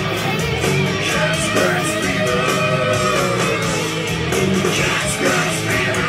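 Rock-and-roll music with guitar over a steady beat.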